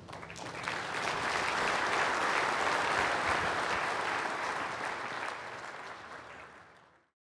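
Audience applauding, building over about a second, then fading and cutting off abruptly near the end.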